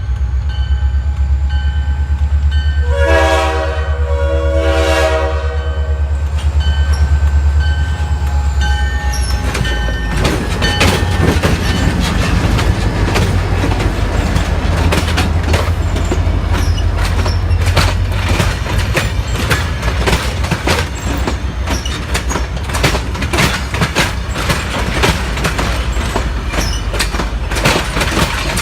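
Amtrak passenger train going by: the diesel locomotive's horn sounds two short blasts about three and five seconds in over a steady low engine rumble. From about ten seconds in the wheels clatter rapidly over the rail joints as the cars pass.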